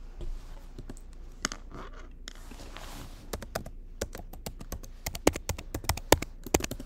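A run of sharp taps, clicks and scratches, growing thicker and louder over the last few seconds: handling noise as the recording device is touched right at its microphone.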